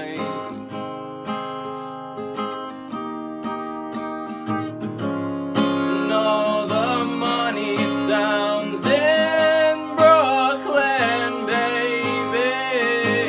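Acoustic guitar strummed and picked through an instrumental passage of a folk-pop song. About five seconds in, a high wordless vocal melody with vibrato comes in over the chords.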